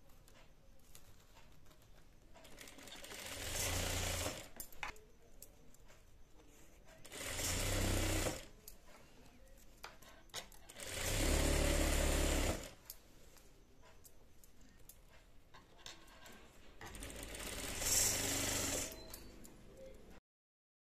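Industrial sewing machine stitching in four short runs of a couple of seconds each, with pauses between, as a narrow folded fabric strip is sewn.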